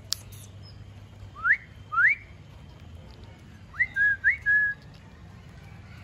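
Four clear whistles: two quick upward slides, then two more rising whistles that each end on a short held note.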